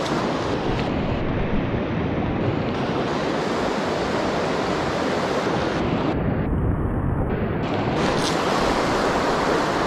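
Steady wash of a mountain creek's flowing water running over rocks and riffles.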